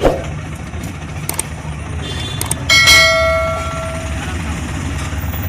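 A single metallic ring, like a struck bell, about halfway through, fading over a second and a half, over a steady low hum.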